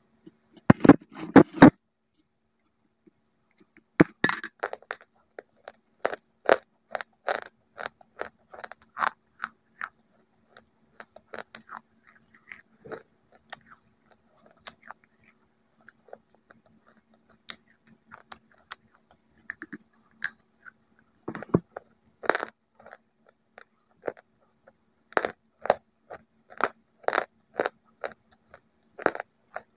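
A hard, chalky white clay bar being bitten and then chewed with the mouth closed, close to the microphone: a loud crackling bite about a second in and another near four seconds, then a steady run of sharp, dry crunches.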